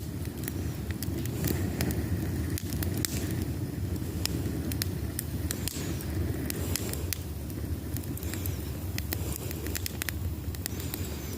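Fire crackling, with many sharp, irregular pops and snaps over a steady low rumble.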